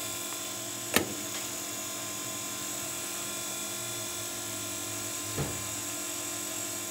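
Conveyor-belt 3D printer's belt drive running, a steady mechanical hum, carrying finished prints along the belt. A sharp click about a second in and a softer knock about five and a half seconds in.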